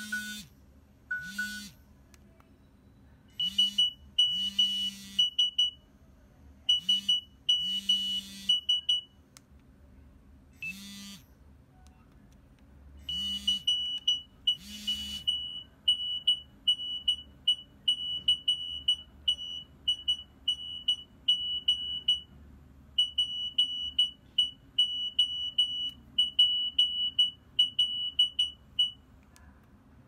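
Nokia 3300 mobile phone previewing its message alert tones one after another. It plays two short mid-pitched beeps, then quick clusters of high electronic beeps with a buzz under them, then a single beep. After that comes a long run of evenly repeated high beep groups, about one and a half a second.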